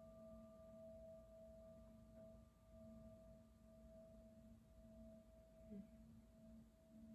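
Near silence, with a faint steady drone of a few held tones.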